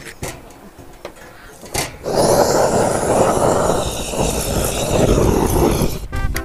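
Firewood knocking against a metal chimney-style fire burner, then about two seconds in a loud, steady rushing roar for about four seconds as the wood is lit and flames up, the sound of a gas torch blasting into the burner. Background music comes in near the end.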